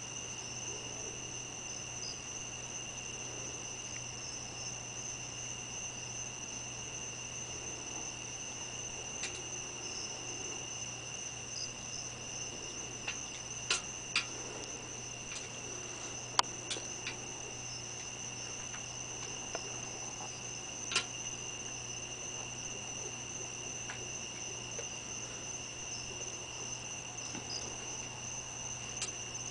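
Night insects trilling steadily in two high unbroken tones, over a faint low hum. A handful of sharp clicks stand out in the middle.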